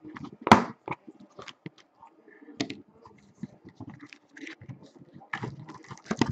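Cardboard case being opened by hand: irregular scrapes, rustles and knocks of cardboard as the lid is worked loose and slid off the boxes inside, with a louder knock about half a second in.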